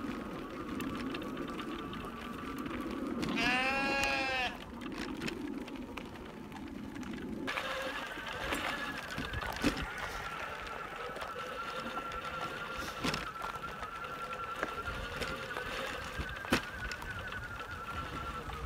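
Electric wheelchair trike running along a gravel track: a steady motor whine that steps up in pitch about seven seconds in as it speeds up, over tyre rumble on the gravel. A single bleat-like call, rising and falling in pitch, about four seconds in.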